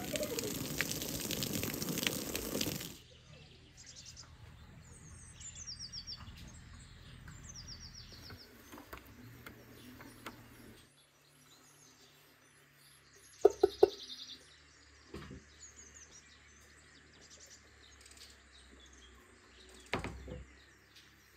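Small birds chirping and twittering in quick falling trills over a faint low hum. A loud rushing noise fills the first few seconds and cuts off abruptly. About halfway through come a few sharp clinks, and a single knock near the end.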